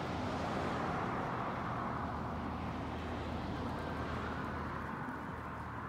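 A passing motor vehicle: a steady rumble and hiss that slowly eases off near the end.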